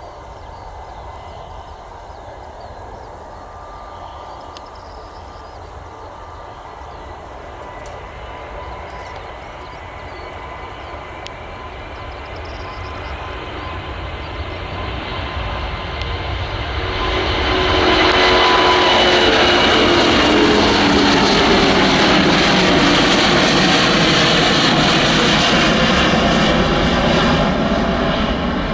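Airbus A350's Rolls-Royce Trent XWB turbofans at takeoff thrust: jet engine noise that builds steadily as the airliner rolls down the runway and lifts off, then is loudest for the last third as it climbs past, with tones that slide down in pitch.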